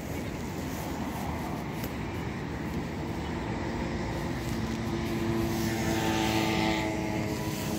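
A distant engine drone with a steady hum that swells a little louder past the midpoint and eases off near the end, over a low rumble.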